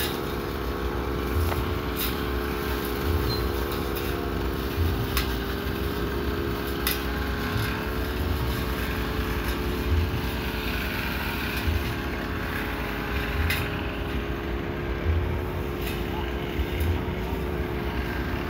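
A small engine or motor runs steadily, a constant droning hum that wavers slightly in pitch, with irregular low rumbles from wind on the microphone.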